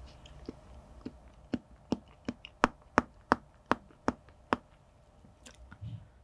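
Mouth clicks and smacks from chewing a mouthful of caviar, salted sturgeon roe: about a dozen sharp clicks at roughly three a second, stopping about four and a half seconds in.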